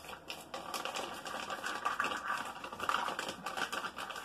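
Small hard objects clattering and scraping as a hand rummages through them: a dense, unbroken run of clicks and rattles.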